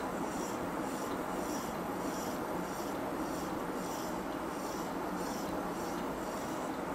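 Endodontic motor's contra-angle running a 35/04 rotary file at 400 RPM in a clear resin training block: a steady hum with a scratchy rasping of the file cutting the canal walls, pulsing about twice a second.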